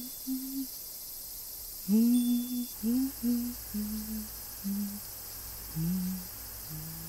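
A voice humming a slow tune: a string of held notes, loudest about two seconds in, that step gradually lower in pitch. A low steady hum sits underneath from about three seconds in.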